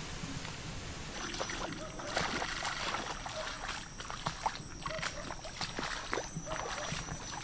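Water splashing and sloshing in irregular strokes, starting about a second in, as of someone moving through flood water.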